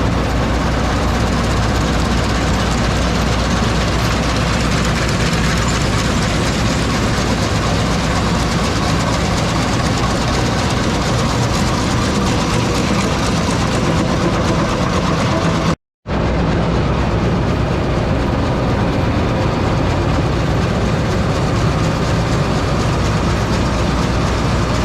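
Combine harvester running steadily, driving the John Deere 640FD draper header's double-drive sickles back and forth. The sound drops out for a moment about 16 seconds in.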